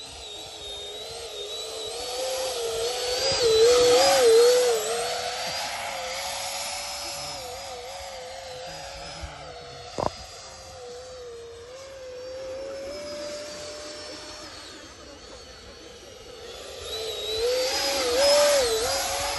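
Electric ducted-fan RC model jet whining as it flies, the fan's pitch wavering up and down with the throttle. The whine swells loud twice as the jet passes low and close, about four seconds in and again near the end. There is one short click near the middle.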